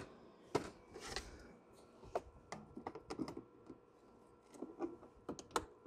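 Plastic clicks and rattles of a cabin air filter being slid into its housing behind the glove box of a Toyota Prius C, with the housing cover handled. A scatter of short sharp clicks, the loudest about half a second in and near the end.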